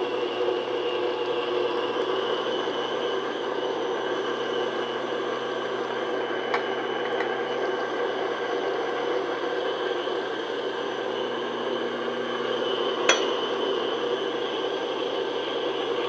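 Stand mixer with a paddle attachment running steadily on low, beating egg into creamed butter and sugar in a metal bowl. Two sharp clinks come over it, the louder one near the end.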